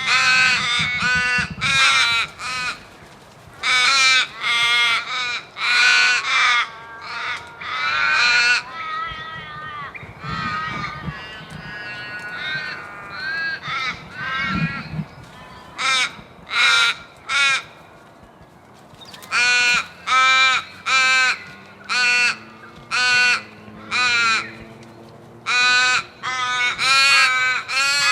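A flock of crows cawing: many harsh caws in quick runs of several, overlapping one another. A quieter stretch in the middle holds softer calls before the loud cawing picks up again.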